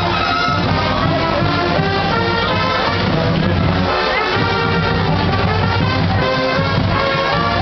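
Band music led by brass, trumpets and trombones, playing loud and steady while the dance line moves to it.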